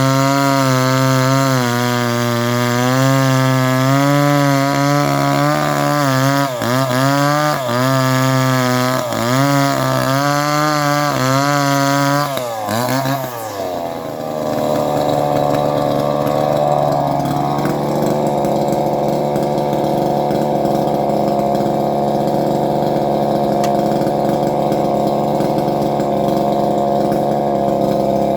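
Chainsaw engine running at high revs with several brief dips in pitch. About halfway through its pitch drops sharply and it carries on with a rougher, noisier steady running.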